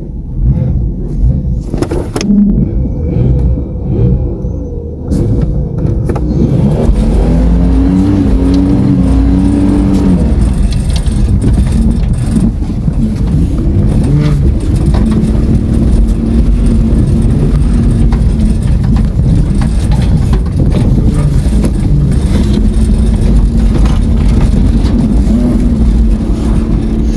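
Holden VS Commodore's engine under way, rising in pitch as it accelerates about a quarter of the way in, then running on steadily with a heavy low rumble. A couple of sharp knocks sound in the first few seconds.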